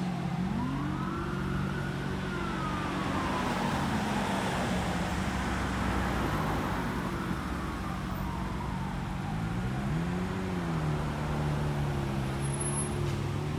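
Police siren wailing, its pitch slowly rising and falling and growing fainter after several seconds, over steady traffic noise and idling engines.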